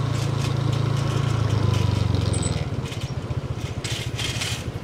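Small motorbike engine running at low road speed with a steady low hum; about halfway through the note breaks into a quick, even putter. Bursts of hiss come near the end.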